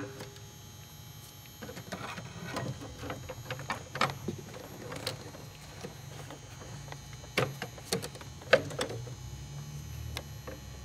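Irregular clicks and knocks of parts being handled as an oil catch can and its mounting bracket are fitted at the strut tower, with one sharp click right at the start.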